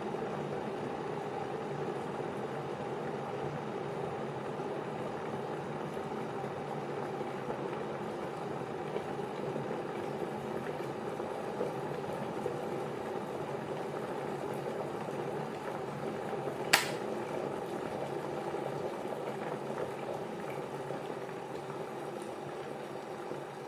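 Electric kettle at a rolling boil, water bubbling steadily. A single sharp click comes about seventeen seconds in, and the boiling eases off slightly near the end.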